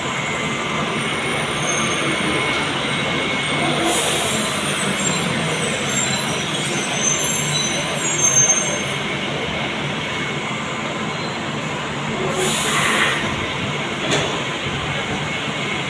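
Light-rail train pulling into an elevated station platform and coming to a stand, with a steady running noise and two short high hisses, one about four seconds in and one about three-quarters of the way through.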